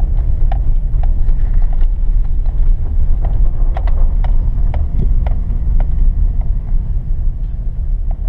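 Vehicle driving on a snow-covered dirt road, heard from inside the cab: a loud, steady low rumble of engine and tyres, with frequent small clicks and rattles.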